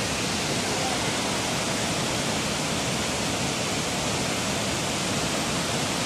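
Steady rushing of the Barachukki waterfall at Shivanasamudra in flood, a huge volume of muddy water crashing down several broad cascades.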